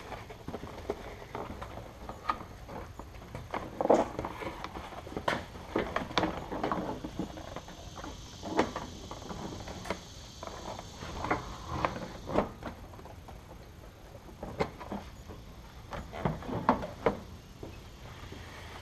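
Irregular knocks, clunks and light rattles of a steel bolt-in roll cage and plastic interior trim panels being shifted and worked into place inside a car; the sharpest knock comes about four seconds in.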